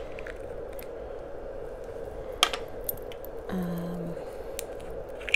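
Small glitter jars being handled on a table, with a sharp click about two and a half seconds in and another near the end, over a steady low hum.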